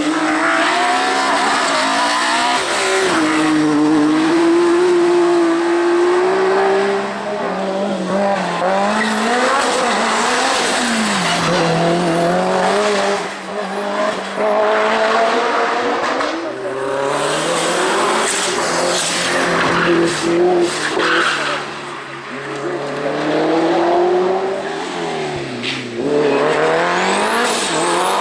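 Racing car engines revving high up the hill climb, pitch climbing through each gear and dropping sharply on the shifts. Several cars are heard in turn, with the sound changing every few seconds.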